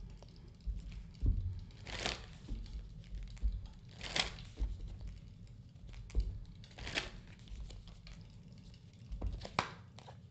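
A deck of oracle cards being shuffled by hand: four soft swishes of cards sliding against each other, a couple of seconds apart, with light knocks of the cards being handled.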